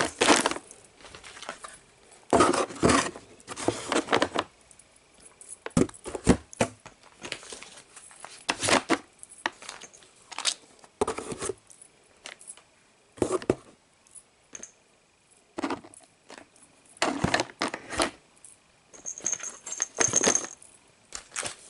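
Cat food packets, tins and cat toys being put one by one into a cardboard box: plastic and foil packaging rustling and crinkling, with knocks and light clinks as items are set down every second or two.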